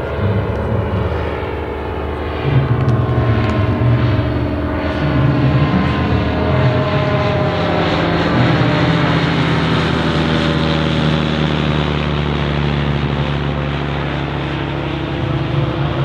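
Piston engines of light propeller aircraft flying overhead: a steady drone whose pitch drifts slowly lower as they pass.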